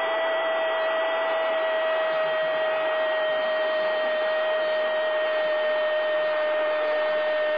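Stadium crowd roaring after a goal, a steady wall of noise, with one long held tone above it that falls slightly in pitch.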